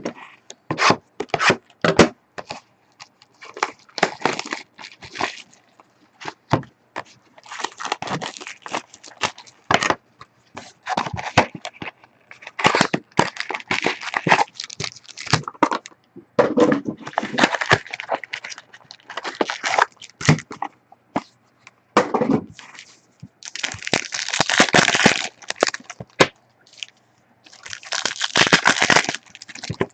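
Crackling, crinkling and tearing of plastic wrap and foil card packs, with scattered clicks and knocks of cardboard, as a sealed box of 2014 Select football cards is opened and its packs torn open. The noise comes in irregular bursts with short gaps.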